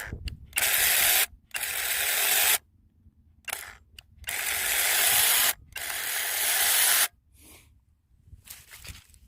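Cordless mini chainsaw triggered in short bursts with its chain running free: four runs of about a second each, then a few brief blips.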